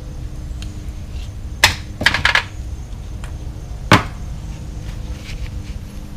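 Sharp metallic clicks and taps of hand work on a Briggs & Stratton lawn mower carburetor, with a quick cluster of them about two seconds in. A single sharp knock follows as the carburetor is set down in an aluminum drip pan, over a steady low background hum.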